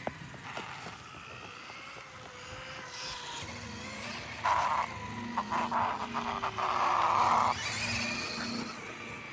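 Electric RC motorcycles running: a faint motor whine that slowly drops in pitch, then a few seconds of loud hissing bursts over a low pulsing from the drivetrain and tyres about halfway through.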